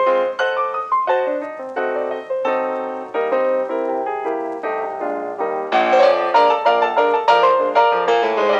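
Piano accompaniment playing a busy passage of quick, repeated notes, growing louder about six seconds in.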